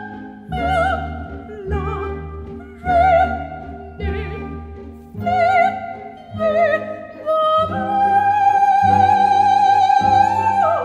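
Operatic soprano singing with orchestral accompaniment: short high phrases with vibrato, then one long high note held from about eight seconds in.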